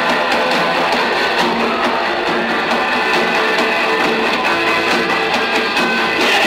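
Punk rock band playing live, heard on an amateur audience recording, with strummed electric guitar to the fore over a dense, steady band sound.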